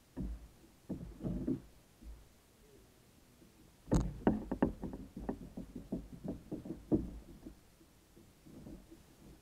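Irregular knocks and clatter of fishing gear being handled in a folding plastic kayak: a few light taps at first, then a burst of sharper knocks in quick succession from about four to seven seconds in.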